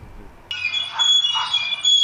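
Rooftop turbine ventilator (wind-driven extractor) squealing as it spins: a high-pitched whine of several steady tones that sets in about half a second in.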